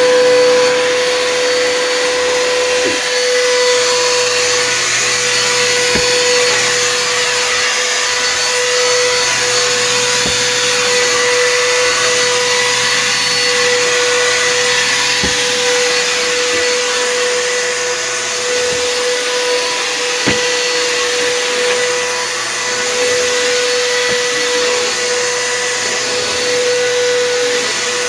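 Bissell PowerForce Helix upright vacuum cleaner running while vacuuming: a steady motor whine over the rush of air, with a few brief clicks scattered through.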